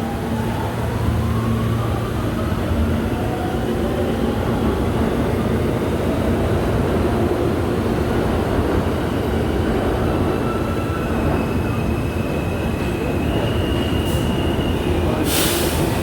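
NYC subway R42 garbage train running on the rails: a steady rumble of wheels and running gear, with faint thin whining wheel-on-rail tones drifting in and out. A brief loud hiss comes near the end.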